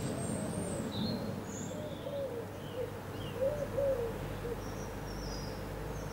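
Birds calling: a series of short, low, arching calls in the middle, with scattered faint high chirps, over the steady rush of flowing river water.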